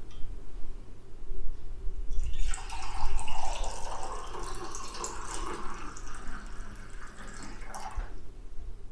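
Freshly brewed filter coffee pouring in a stream from a glass carafe into a ceramic mug. The pour starts about two and a half seconds in and stops about eight seconds in.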